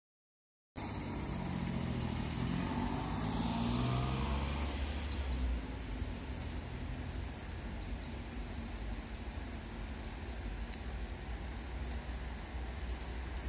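Street ambience with a steady low traffic rumble. A vehicle passes with its engine note falling over the first few seconds, and a few short high chirps sound later.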